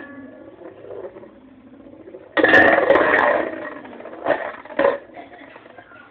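Two Metal Fight Beyblade tops, Dark Wolf DF145FS and Rock Leone 145WB, spinning and rattling in a bowl. There is a loud clattering burst lasting about a second, about two and a half seconds in, and two short knocks a couple of seconds later.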